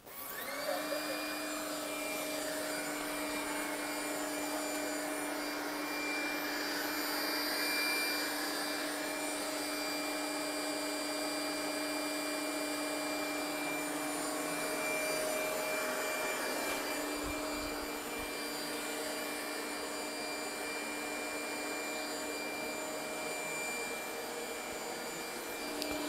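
Trifo Lucy robot vacuum cleaner starting a cleaning run on medium suction: its fan spins up within about a second, then runs with a steady whine over a rush of air.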